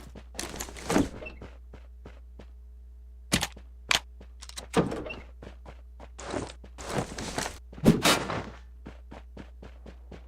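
Irregular knocks, thunks and clatters at uneven intervals, the loudest about eight seconds in, over a steady low hum.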